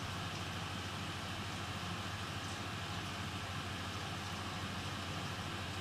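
Steady low hum with an even hiss behind it, unchanging throughout: background noise from equipment or the room.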